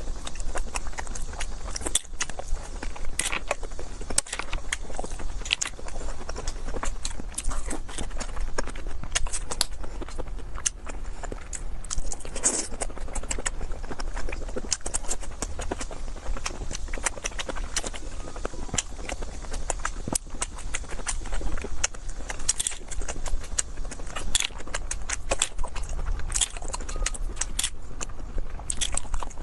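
Close-miked eating: chewing and mouth sounds with many short, irregular clicks and crackles, over a steady low hum.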